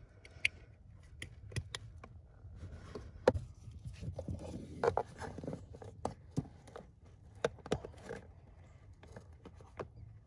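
Plastic wiring-harness connectors being handled and pushed together: scattered sharp clicks, scrapes and rustling of cables, the loudest click a little over three seconds in.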